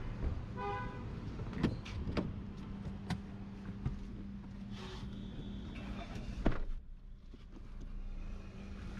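Car door being handled as someone gets into the car: several sharp clicks, then the door shut with a solid thud about six and a half seconds in, after which the street noise outside drops away. A steady low hum runs underneath.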